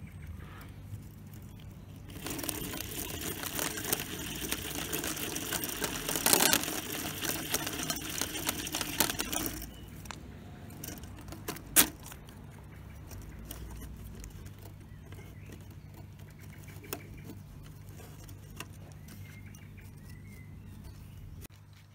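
A geared hand winder winding the twisted rubber motor of a model plane, a fast rattling whirr of clicks that runs for about seven seconds and then stops. A single sharp click follows a couple of seconds later, with faint handling ticks after it.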